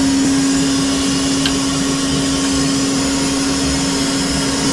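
Swarf vacuum of a record-cutting lathe running: a steady airy hiss over a constant low hum. This is the suction that draws away the thread of swarf the diamond cutting stylus lifts from the blank.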